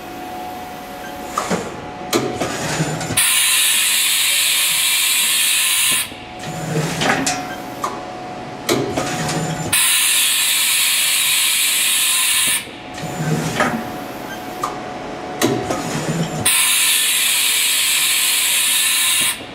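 Haas VF-4 vertical machining center running repeated tool changes: clunks and short whirs of the tool changer and spindle, with a loud hiss of air lasting about three seconds, three times.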